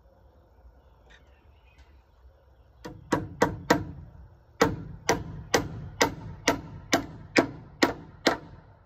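A hammer driving nails through metal joist hangers into wood framing: a quick group of blows about three seconds in, a short pause, then an even run of about nine blows, roughly two a second, each with a short ring.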